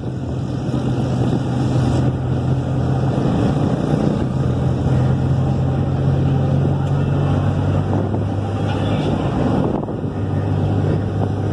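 Engine and road noise of a moving vehicle heard from inside it: a steady low engine hum over a rushing haze, its note dropping a little about eight seconds in.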